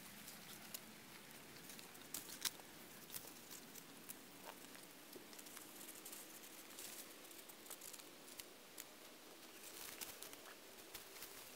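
Hands digging and scratching in loose soil, faint scattered crackles and ticks. A faint steady low drone comes in about halfway through.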